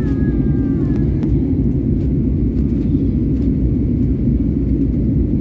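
Steady low cabin roar inside a jet airliner, from the engines and the airflow over the fuselage, heard from a window seat during the climb after takeoff.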